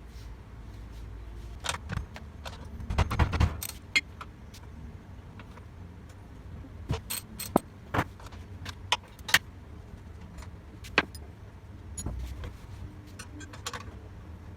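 Hand tools clinking and rattling against metal while nuts and bolts are undone on a mower's rear roller: irregular sharp metallic clinks, with a louder rattle about three seconds in.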